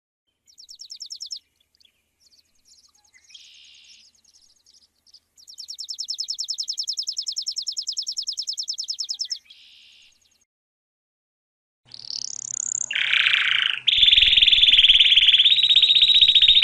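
Sparrow chirping in rapid, high-pitched trills: a short trill, then a long even trill of quick repeated notes, and near the end a sweeping call followed by a louder, buzzier trill.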